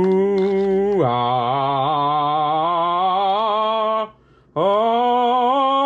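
A man's voice humming or chanting long wordless notes. The first note lasts about four seconds: it drops in pitch after about a second and then slowly rises. After a short break, a second, higher note is held to the end.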